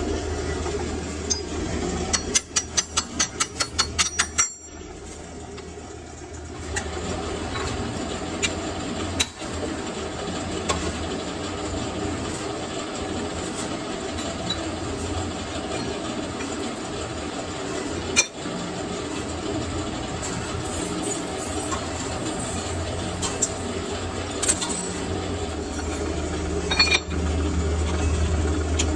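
Workshop machinery running with a steady low hum. About two seconds in comes a quick run of sharp metallic clinks; the noise dips briefly a little later, and occasional single clinks follow.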